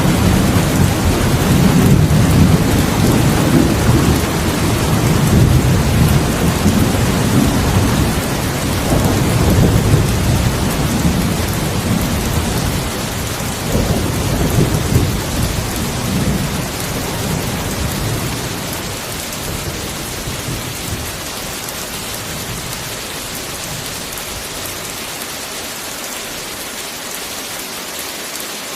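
Heavy rain falling steadily, with a long, low roll of thunder that rumbles, swells again about halfway, and fades out about two-thirds of the way through, leaving only the rain.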